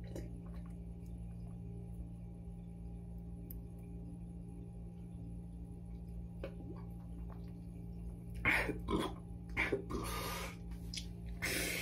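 A steady low hum; then, about eight seconds in, a man takes several sharp, noisy breaths and gasps, pausing mid-chug from a boot of carbonated water.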